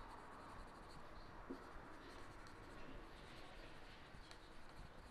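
Faint scratching of a dry-erase marker writing on a whiteboard.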